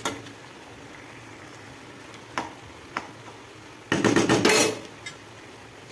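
A metal spatula clinking against a kadai while stirring prawn curry: a few single knocks, then a quick loud run of scraping and tapping about four seconds in.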